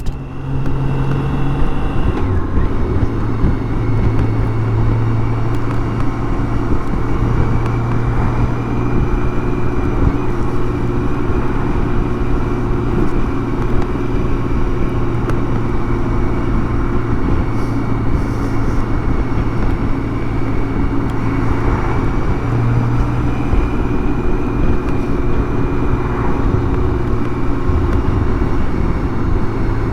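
BMW K1600 GTL's inline-six engine running at a steady cruise, its note holding level throughout, under a constant rush of wind noise from riding in a crosswind.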